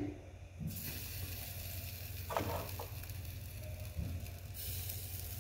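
Marinated chicken tikka pieces sizzling faintly and steadily on a wire rack over an open gas flame as they char. A couple of soft knocks come from metal tongs setting more pieces on the rack.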